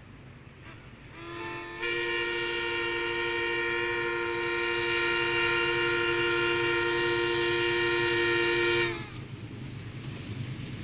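A locomotive horn sounding one long blast of several notes at once, about seven seconds long. It comes in softly, swells to full strength, then cuts off sharply, over a low steady rumble.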